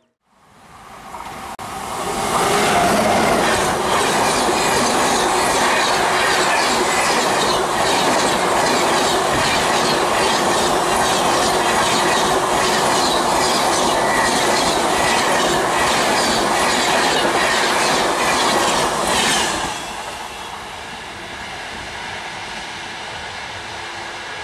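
Rajdhani Express LHB passenger coaches passing close at high speed: a loud, steady rush of wheels and air with a rhythmic clickety-clack of wheels over rail joints. The sound builds over the first two seconds. About twenty seconds in it drops abruptly to a lower hum as the train runs away.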